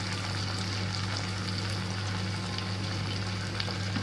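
Sauce simmering in a nonstick wok, a steady bubbling sizzle, with a steady low hum underneath.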